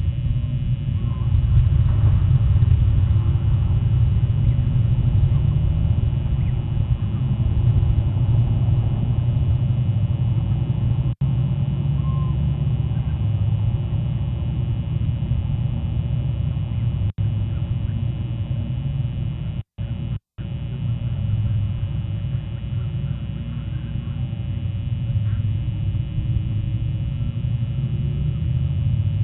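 Steady low rumble of wind buffeting an outdoor nest-camera microphone, cutting out briefly a few times.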